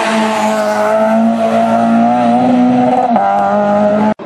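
Citroën C2 rally car's engine held at high revs with a steady pitch, easing off briefly a little past three seconds in. The sound cuts off abruptly near the end.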